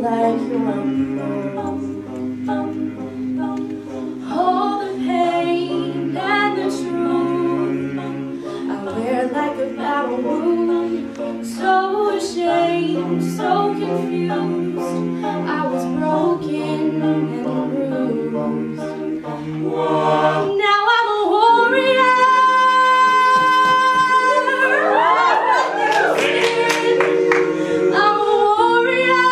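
A cappella group singing: a female lead voice over backing singers holding chords. About two-thirds of the way through the sound swells louder and the lead's line climbs, bending and wavering in the high notes.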